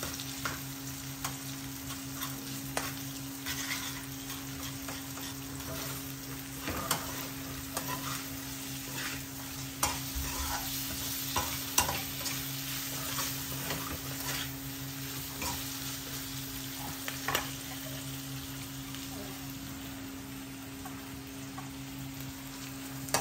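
Pork frying with a sizzle in a metal wok while a metal ladle stirs and scrapes it, with irregular clinks of the ladle against the pan over a steady low hum.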